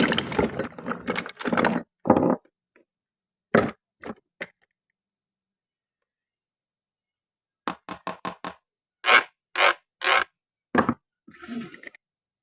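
Hard toy food being handled: a scraping rustle at the start, a few light clicks, then a run of about eight sharp knocks and clacks of hard plastic or wood, with a short scrape near the end.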